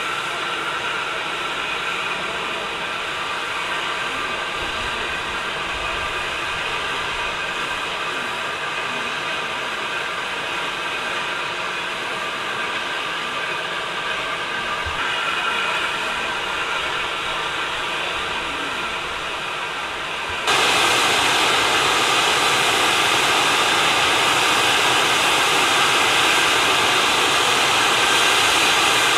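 NER Q6 0-8-0 steam locomotive standing, with a steady hiss of escaping steam. About two-thirds of the way in the hiss jumps suddenly louder and brighter, and it stays that way.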